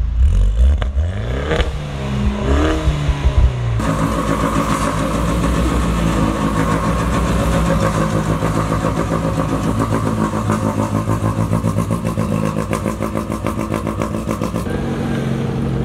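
Small go-kart engine revving up with rising pitch as the kart pulls away, then running hard at high revs. About four seconds in the sound changes abruptly to a steady, fast-pulsing engine note.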